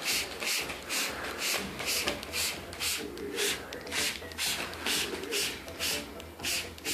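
Hand-pumped water spray bottle squeezed again and again, a hiss of mist about twice a second.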